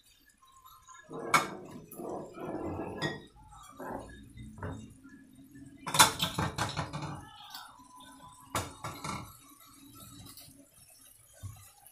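A utensil stirring and tossing shredded vegetables in a wok, scraping and clinking against the pan in irregular bouts, with sharp knocks about a second and a half in, around six seconds, and twice near nine seconds.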